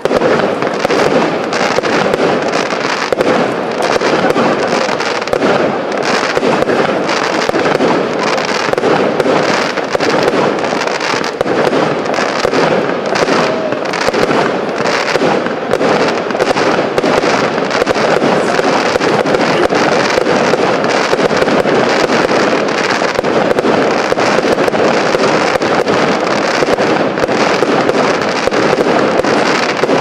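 Fireworks display with a pyrotechnic waterfall burning and small aerial effects bursting: a dense, steady crackle of many small bangs, with no single big shell burst standing out.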